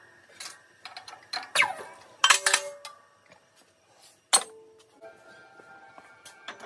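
Sped-up metallic clinks and knocks from a bearing race being pressed into a GM 4104 bus's front hub in a hydraulic shop press, each followed by ringing metal tones. One sharp knock stands out about four seconds in, and several steady ringing tones hang on near the end.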